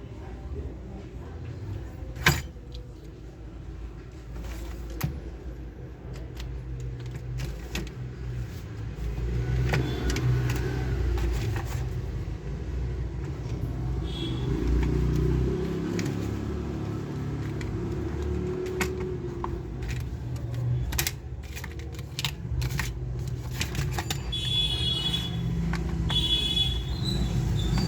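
Scattered clicks and clatter of small plastic toy gun parts being handled, over a steady low rumble.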